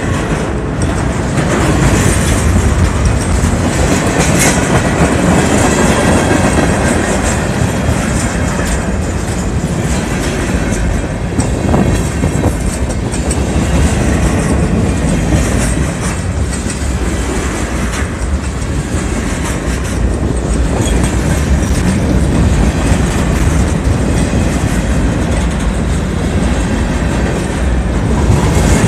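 Freight train cars rolling past at close range: double-stack container cars, tank cars and a centerbeam flatcar, their steel wheels clacking steadily over the rail joints and crossing under a continuous rumble.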